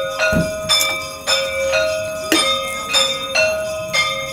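A bell struck over and over, about twice a second, each stroke ringing on until the next. There is one dull knock shortly after the start.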